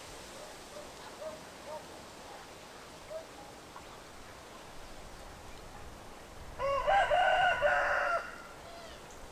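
A rooster crowing once, a single call about a second and a half long, near the end. A few faint short calls come before it.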